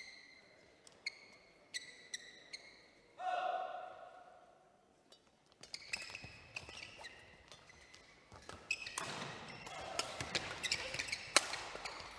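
A badminton doubles rally: rackets crack sharply against the shuttlecock, and court shoes squeak on the hall floor. Before the rally starts there are a few scattered squeaks. From about six seconds in, the hits and squeaks come thick and fast.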